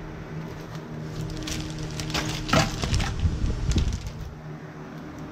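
Small metallic clicks and scrapes of a battery terminal nut, washer and cable lug being handled on a battery post, bunched together about two to four seconds in, over a steady low hum.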